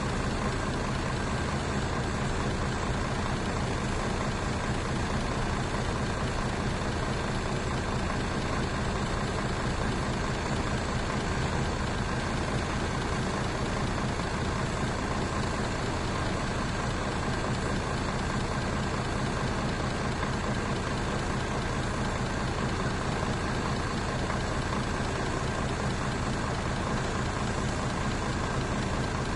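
Mercedes-Benz bus engine idling steadily, a low even rumble with no revving.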